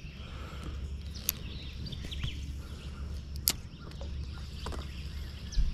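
Outdoor ambience: a steady low rumble with faint bird calls over it, and two sharp clicks, one a little over a second in and one about three and a half seconds in.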